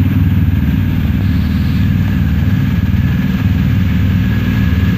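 A vehicle engine running at a steady idle, a loud, rapid low pulse with a faint steady whine above it.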